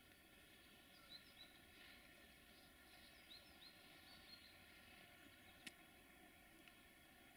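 Near silence: faint ambient hiss with a few brief, high bird chirps and one sharp click late on.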